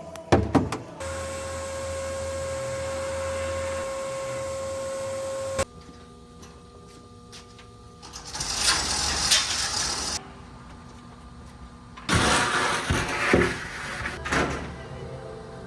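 Sandblasting the rear axle housing. After a few clicks, a motor hums steadily for about five seconds and stops. Then come two bursts of hissing air and abrasive from the blast gun, each about two seconds long.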